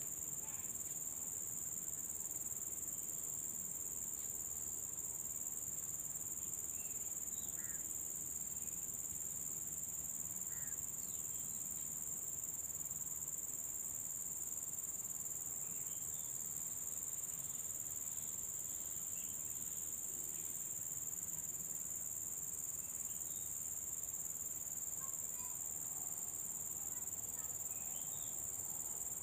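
Steady, high-pitched drone of insects in chorus, unbroken throughout, with a few faint short chirps now and then.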